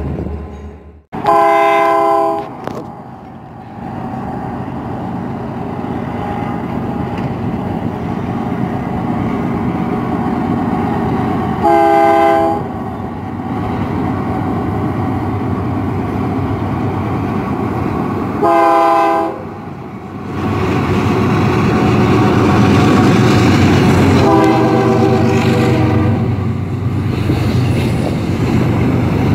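Freight train horn blowing four separate blasts, the last one fainter, over the steady rumble and wheel noise of a double-stack intermodal container train rolling past, which grows louder in the second half.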